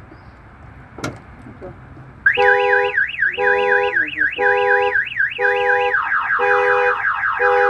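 A car door latch clicks, and about a second later a car alarm goes off loudly. Its siren sweeps up and down about twice a second over a pulsing two-note beep, then switches near the end to rapid falling chirps.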